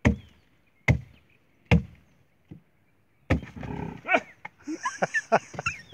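A blade chopping into a tree trunk: three sharp chops about a second apart, then a busier stretch of knocking and scraping from about three seconds in. The wood is being cut away around a calf's head that is stuck in a hole in the trunk.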